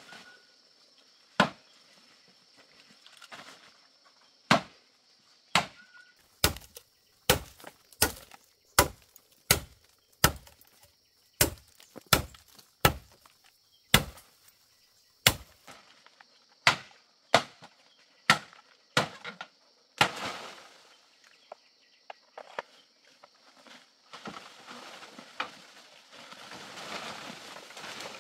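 Machete chopping into a green bamboo culm: about twenty sharp chops, roughly one a second. About twenty seconds in the chopping stops with a swish of leaves, and near the end there is steady rustling through foliage.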